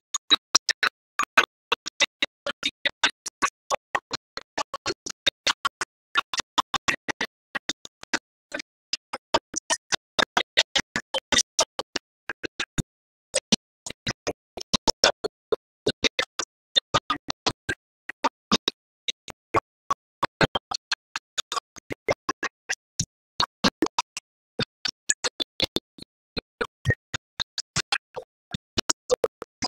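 Choppy, stuttering stream audio: very short fragments of sound, about three a second, each cut off by dead silence. The connection is dropping out, so whatever is being said or played is chopped into glitchy snippets.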